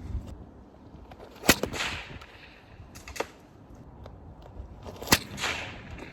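Kevlar stone sling cracking like a whip as each stone is released, twice, about three and a half seconds apart, each sharp crack trailed by a brief hiss.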